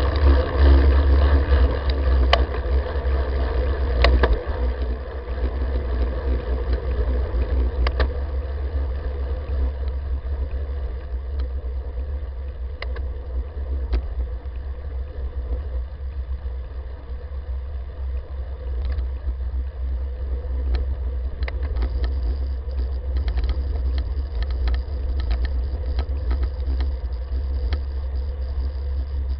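Wind noise on the microphone of a camera mounted on a moving bicycle's handlebar, a steady low rumble over tyre noise on asphalt. Scattered sharp clicks and rattles come through, more often in the last third.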